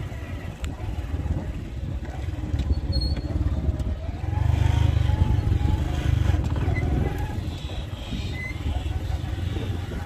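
Motorcycle running as it is ridden, with a steady low rumble; about four seconds in the engine rises in pitch and grows louder for a few seconds, then eases off.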